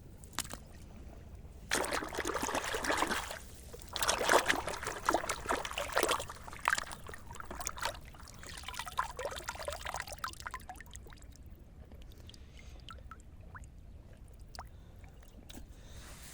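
Water splashing and pouring in two main bursts, then smaller splashes and drips that fade out over the next few seconds, leaving a few faint clicks.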